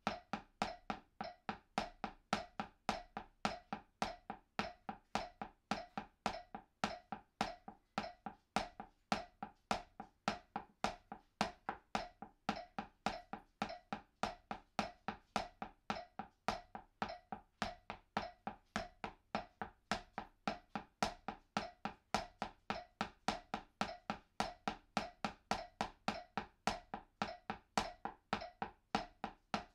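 Drumsticks tapping a makeshift practice pad of books covered with a washcloth, playing a slow double stroke roll (right, right, left, left). The strokes are short, even taps at a steady tempo, with no pause.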